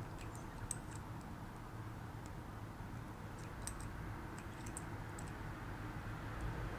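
Faint, irregular small metallic clicks from a pick tool working the rotating discs inside a disc detainer padlock, in scattered clusters over a low steady hum.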